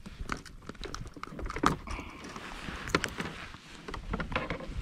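Irregular small clicks, rattles and knocks from hands working pliers, a lure and a caught bass against a plastic fishing kayak's deck, with two louder knocks around the middle.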